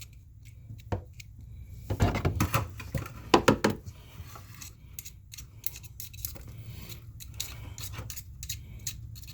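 Small metal pick hook scraping and clicking against the coil spring of a bathtub drain mechanism as trapped hair and gunk are pulled out. A cluster of louder scrapes comes about two to four seconds in, followed by lighter, scattered clicks.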